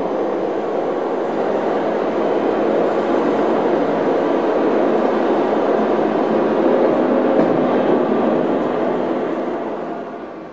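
Tram running: a steady, dense rumble that fades away near the end.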